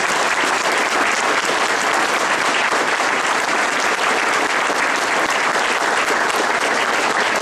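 A crowd of supporters applauding steadily, many hands clapping at once with no letting up.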